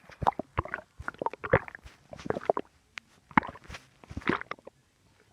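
A person's stomach gurgling in a rapid, irregular run of short gurgles that stops about four and a half seconds in.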